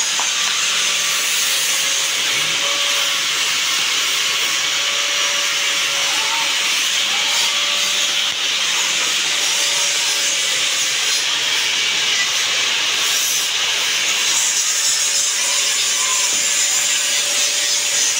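Workshop machinery running: a steady, even hiss with a faint steady hum beneath it that holds unchanged throughout.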